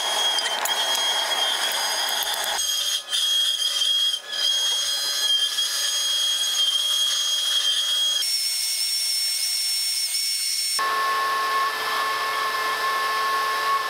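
Steady high-pitched machine whine with hiss, shifting abruptly to a different pitch several times; near the end a power saw cutting through a steel plate.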